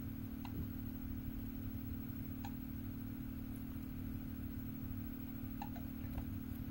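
Steady low hum and hiss of old home-video footage played back through a television, with a few faint clicks.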